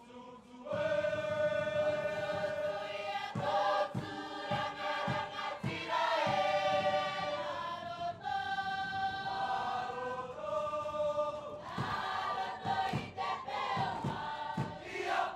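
A large Cook Islands performing group singing together as a choir, starting about a second in, with a few sharp beats under the voices. The singing cuts off suddenly at the end.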